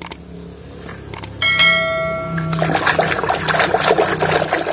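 A couple of clicks, then a bell-like chime about one and a half seconds in that rings for about a second, the sound effect of a subscribe-button animation. After it a hand splashes and swishes in a basin of muddy water.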